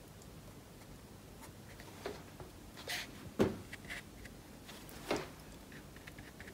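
A flat watercolour brush dabbing and dragging on watercolour paper: a few short, faint scratchy touches at irregular intervals, the loudest about three and a half seconds in.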